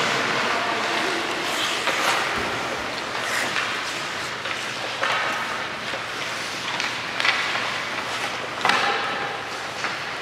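Hockey rink sound: a steady wash of noise with about five sharp clacks of sticks and pucks on the ice, spaced a second or two apart.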